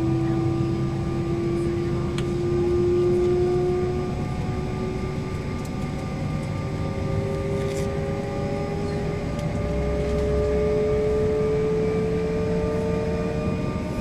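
Whine of the Embraer 175's jet engines heard from inside the cabin: several steady tones slowly rise in pitch over a low, even rumble.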